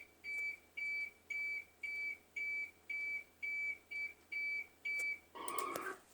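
Electronic alarm tone presented as Belarus's emergency alert, made of short beeps of one high pitch, about two per second, that sound basically just like a microwave; the beeping stops about five seconds in and is followed by a brief noisier sound. The listener judges this alarm fake.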